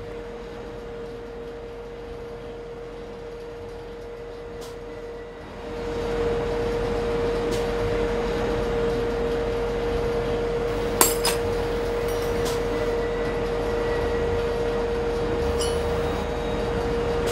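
A steady hum with one constant tone throughout. About six seconds in, a louder rushing background noise comes in and stays. Near the middle a single sharp metallic clink rings out, followed by a few faint ticks.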